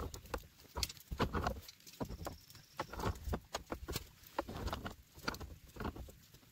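Wrench turning a brass threaded fitting onto an IBC tank's plastic valve outlet, threaded with Teflon tape. Irregular metal clicks, knocks and short scrapes come as the tool grips, slips and is repositioned.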